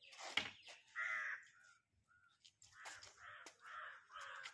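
Crows cawing: one harsh call about a second in, then a run of several calls in the second half. A brief sharp noise about half a second in is the loudest sound.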